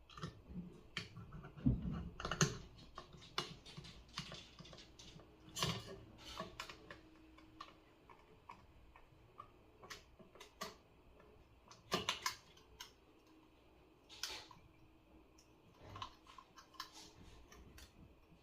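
Irregular light clicks and taps of small hardware and plastic parts being handled while assembling an electronic spinner kit, with a few louder knocks now and then.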